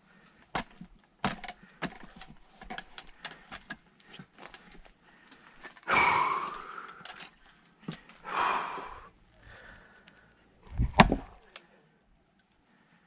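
Firewood splitting by hand: small knocks of wood being handled, two loud exhalations from the person swinging, then one heavy strike of the axe into a log about eleven seconds in.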